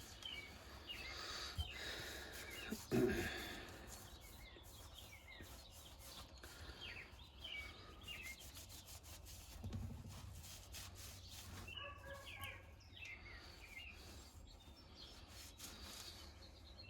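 Birds chirping over and over in short, quick calls, with a single loud knock about three seconds in and a faint low hum underneath.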